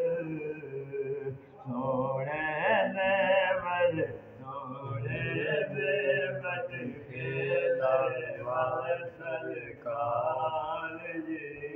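A man singing a devotional naat in Punjabi, long phrases with a wavering, ornamented pitch and short pauses between lines.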